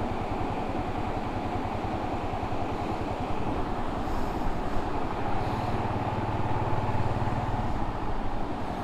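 Honda Monkey 125's air-cooled single-cylinder four-stroke engine running at low speed with an even putter, getting a little louder about five and a half seconds in.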